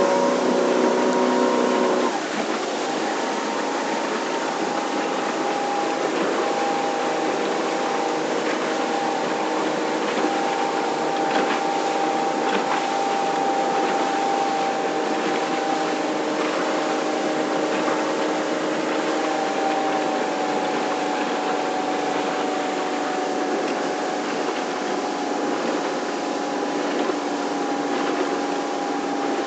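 Thundercraft Nuova 220 motorboat's engine running steadily under a haze of wash and hull noise. Its tone drops in pitch about two seconds in, then holds steady.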